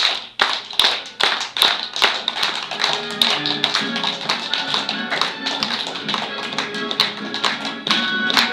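Rhythmic hand clapping, about two and a half claps a second, keeping time; music with a melody joins in about three seconds in.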